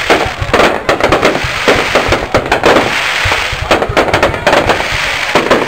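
Aerial fireworks going off in a rapid, unbroken barrage of bangs and crackling as shells and rising stars burst overhead, with denser clusters of reports about a second in and again around the middle.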